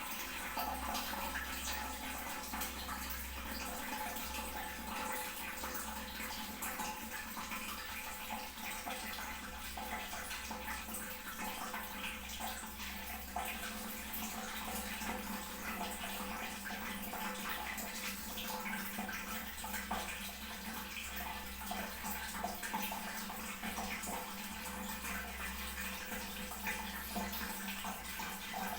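Toilet cistern refilling after a flush: water running steadily into the tank.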